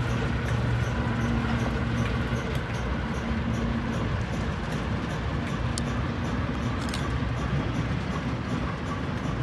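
Diesel shunting locomotive's engine running with a steady low hum as it slowly pulls a rake of open wagons away, with faint regular wheel clicks and a couple of sharp metallic clanks about two-thirds of the way through.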